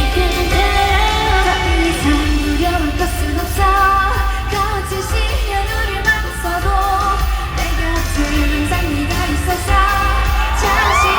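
Live K-pop song performed over a loud backing track with heavy bass and sung melody, echoing in a large hall. Near the end, high rising whoops come in over the music.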